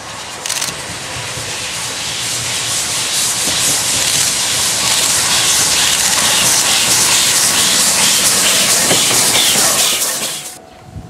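China Railways SY-class 2-8-2 steam locomotive passing close by, with a loud hiss of steam from its open cylinder drain cocks and a rhythmic chuffing. The sound grows louder as the locomotive approaches and cuts off abruptly near the end.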